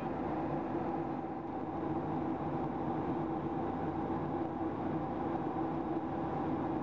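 Jet airliner cabin noise in cruise: a steady rush of airflow and engine drone with a constant low hum.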